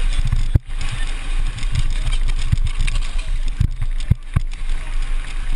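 Steady rumble and hiss of wind and BMX tyres on a packed-dirt track, heard through a helmet-mounted GoPro, with several sharp knocks as the bike hits bumps, one about half a second in and three close together near the end.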